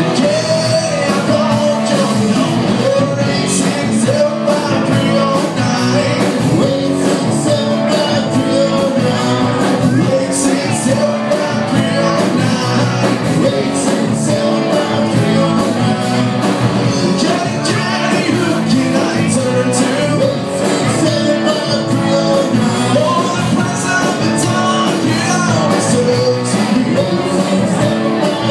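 Live band playing a rock and roll cover, a singer over a steady drum beat.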